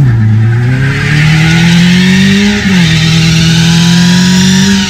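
Car engine revving hard during a front-wheel burnout, with the spinning front tyre hissing against a metal plate. The revs climb, dip sharply about halfway, then hold high until they fall away at the very end.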